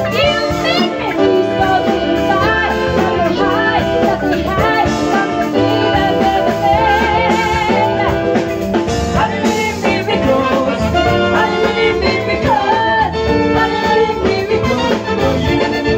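Live band playing with a woman singing lead over a horn section of saxophones and trumpet, backed by keyboard, bass, guitar and drums.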